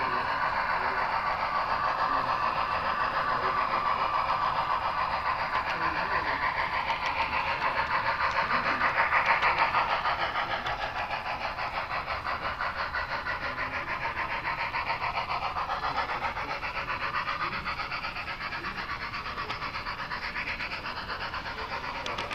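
HO-scale model train running along the track: a steady, rapid rattling whir of wheels and motor, loudest about nine seconds in and a little quieter after.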